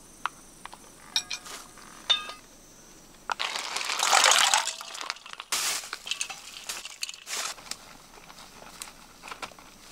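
Tableware clinks and taps while food is handled, two of them ringing briefly in the first couple of seconds, then a loud crinkling rustle about three to five seconds in, with a few shorter rustles after it.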